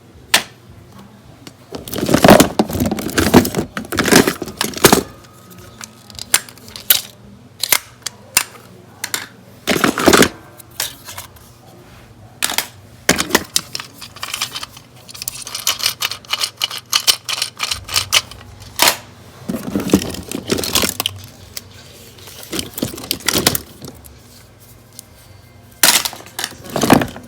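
Plastic toy packaging and figures being handled and unboxed: irregular crinkles, clicks and rattles, with louder clusters of handling every few seconds.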